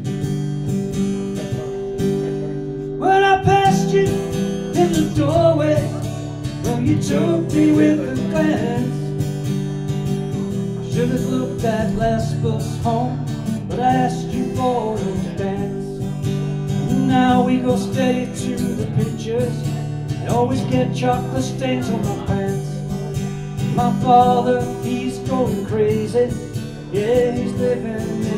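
Live acoustic guitar, strummed, with a man singing along from about three seconds in; the guitar plays alone before that.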